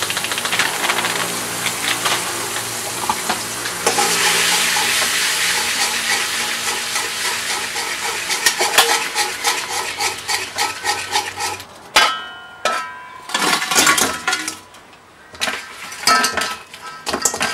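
Soy sauce sizzling in a hot wok while a metal ladle stirs and scrapes it, with many small clicks. About twelve seconds in, the sizzle dies down and the ladle and pieces of fried chicken clank sharply against the wok, the metal ringing after each strike.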